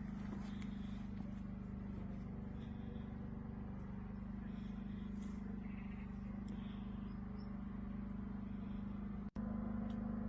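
A steady low motor hum that cuts out for an instant near the end.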